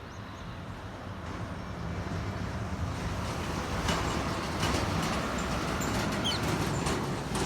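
Low rumble of a passing motor vehicle growing steadily louder, with a few faint, short bird chirps about six seconds in.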